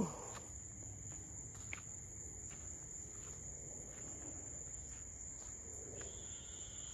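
Night insects trilling in one steady high note, with soft footsteps through grass and leaf litter underneath.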